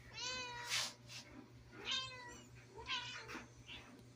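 Newborn kittens mewing: three high, thin cries, each falling in pitch at its end.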